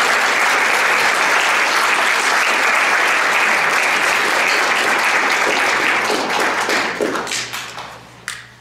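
Audience applauding, a steady dense clapping that thins and dies away over the last two seconds or so, with a few scattered last claps.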